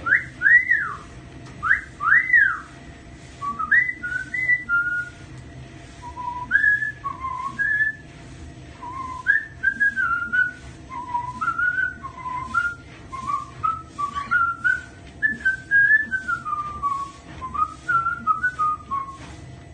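Cockatiel whistling a song of clear, melodic notes. It opens with a few swooping up-and-down whistles, then runs through many shorter rising and falling notes with brief pauses.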